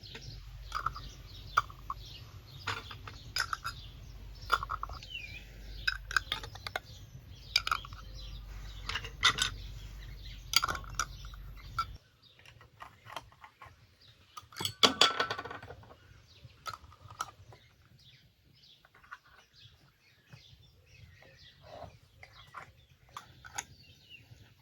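A run of short clinks and knocks, like glass and kitchenware being handled, with chickens clucking. A low background hum stops abruptly about halfway through, and a louder clattering rattle follows a few seconds later.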